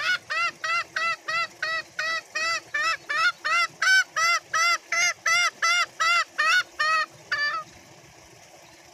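Green junglefowl giving its 'ngekek' call: a fast, even run of some twenty harsh, arched calls, about three a second, that stops about seven and a half seconds in. It is the call a junglefowl uses to summon its companions, to which other green junglefowl usually answer.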